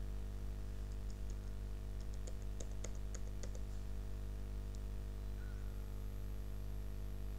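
Computer keyboard keys tapped in a quick run of faint clicks as a password is typed, followed by one lone click a second or so later, over a steady low electrical hum.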